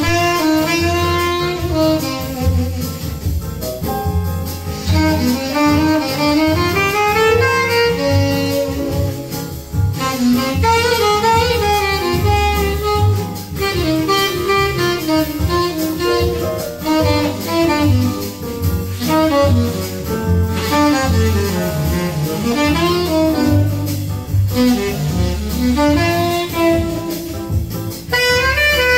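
Pair of Sonab OA14 loudspeakers, Stig Carlsson's design with their original refoamed Peerless woofers, playing a jazz recording with a saxophone lead over a strong bass line.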